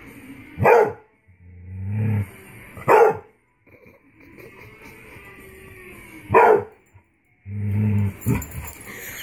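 A beagle hound barking at a toy figure, four loud single barks a couple of seconds apart. A low rumble swells just before the second and fourth barks.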